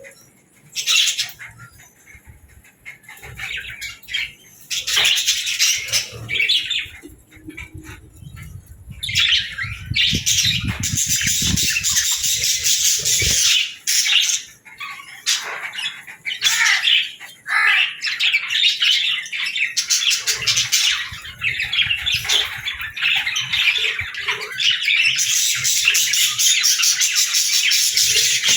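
Pet budgerigars chattering and warbling in dense, high-pitched calls. The calls come in short bursts at first, then run almost without a break from about a third of the way in. A low rumble sits underneath during the first half.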